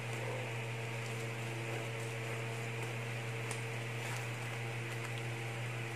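Steady low electrical hum, with a few faint ticks and rustles as scissors cut into a plastic courier pouch.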